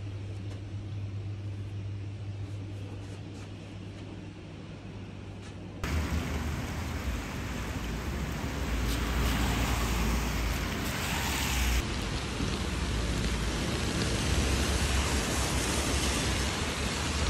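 A low steady hum for the first few seconds, then, from about six seconds in, steady rain falling and splashing on wet asphalt pavement.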